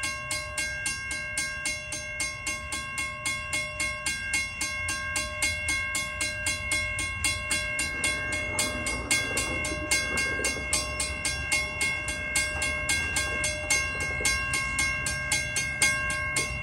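Railroad crossing warning bell ringing in rapid, evenly spaced strokes while the crossing is activated and its gate arm lowers.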